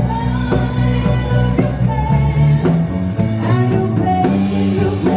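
Live band playing: a woman singing over electric bass, keyboard and drums.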